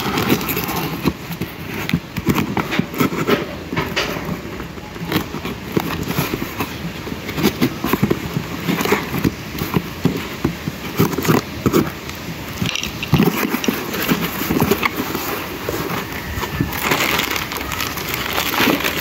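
Cardboard shipping box being opened: irregular scraping, tearing and crackling of cardboard and packing tape, with plastic packaging rustling near the end.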